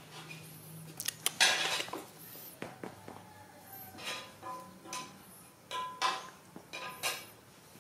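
Dishes and metal utensils clattering and clinking in several short, separate bursts, the loudest about a second and a half in, some with a brief ring.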